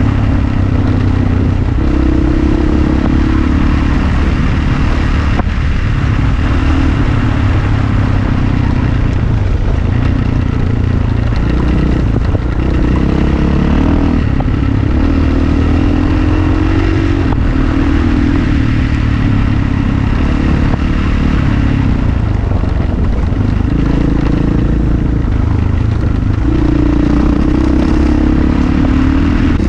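Rally motorcycle engine running on the move, its pitch rising and falling with the throttle, over a steady rushing noise from the ride.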